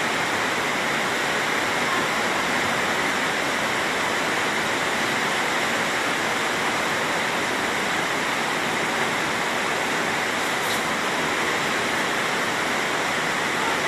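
Fast-flowing floodwater rushing in a steady, loud roar.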